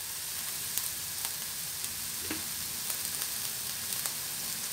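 Chopped onion and sliced green chillies sizzling steadily in hot sunflower oil in a frying pan, with faint scattered crackles.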